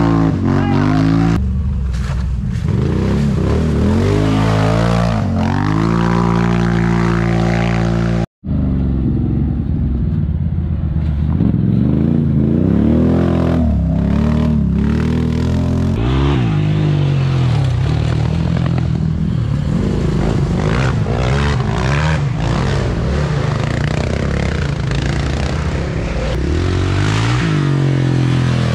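ATV (quad) engines revving hard and easing off again and again as the machines climb a muddy trail, the engine pitch rising and falling with the throttle. The sound breaks off for an instant about eight seconds in.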